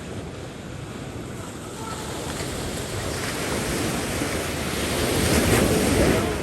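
Ocean surf washing in, rising to a peak about five seconds in, with wind buffeting the microphone.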